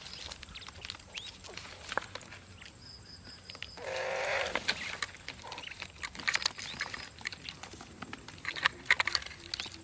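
Scattered light clicks and taps of hands working on trap materials, with one short animal call about four seconds in.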